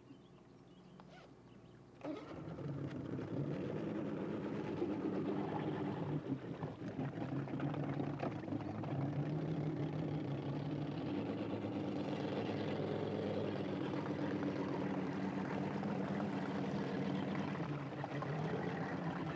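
Boat motor comes on suddenly about two seconds in and then runs steadily with an even pitch.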